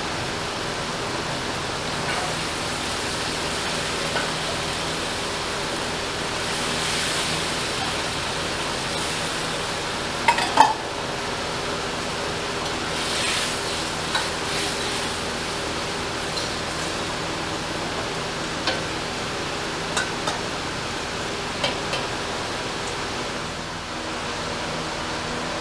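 Sponge gourd curry simmering and bubbling in a metal kadai, a steady hiss throughout. A spatula stirs the pan and clicks against the metal a few times, loudest about ten seconds in.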